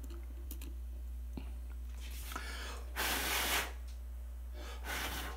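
Air puffed at a small electronic display to clear dust: a short puff, a longer blast about three seconds in, then another short puff near the end. A few light handling clicks come first.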